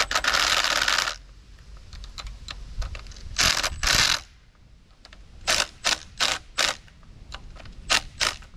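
Cordless power driver run in short bursts, snugging the camshaft sprocket bolts on a GM LQ4 V8. There is one longer run at the start, a pair of bursts about three and a half seconds in, four quick ones from about five and a half seconds, and two more near the end.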